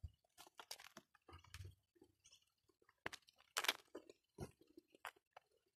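Faint footsteps on a brick path: a scatter of soft crunches and clicks at an uneven pace, the loudest a little past the middle.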